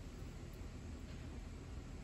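Quiet, steady outdoor background noise: a soft hiss over a low, wavering rumble, with no distinct events.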